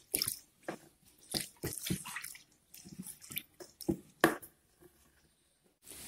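Water sloshing and splashing in a plastic bucket as a wooden stick stirs acid slurry into it to dissolve it, in irregular strokes that stop for about a second near the end.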